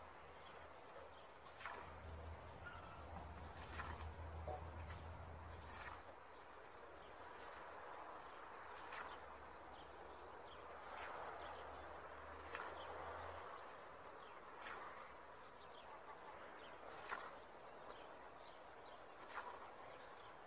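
Faint swishes of a hand scythe cutting through standing alfalfa, one stroke about every two seconds, with birds chirping in the background.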